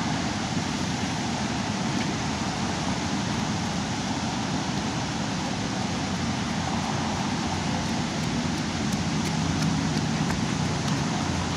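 Steady rushing noise from a fireboat's water cannons spraying, with a low drone underneath.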